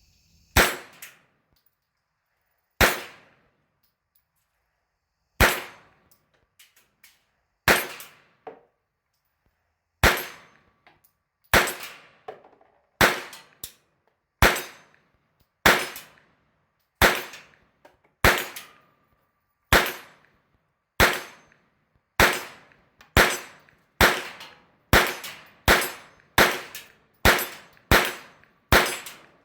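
Romanian Draco 9mm pistol, fitted with a muzzle brake, firing single semi-automatic shots. The shots start slowly, a couple of seconds apart, then quicken to under a second apart near the end.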